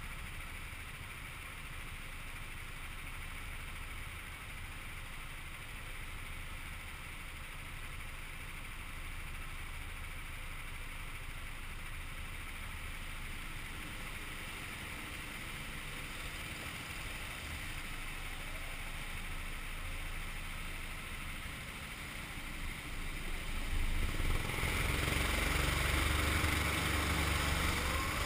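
Rental go-kart engines idling, a steady low drone. About 24 s in the kart pulls away and its engine grows louder under acceleration.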